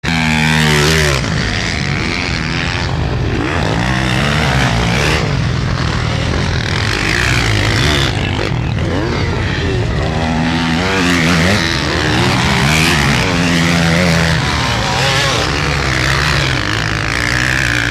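Motocross motorcycle engines racing on a dirt track, revving hard with the pitch rising and falling at each throttle change and gear shift. A bike passes close about a second in, its engine note dropping, and other bikes are heard on the track for the rest of the time.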